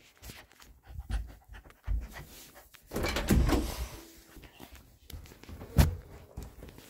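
Panting breaths close to the microphone mixed with the rustle of a phone being handled, and one sharp knock about six seconds in.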